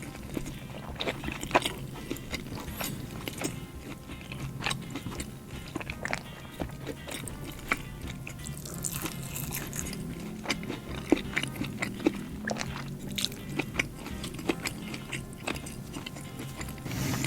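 A person chewing a burger close to the microphone: irregular wet mouth clicks and soft crunches, with background music underneath.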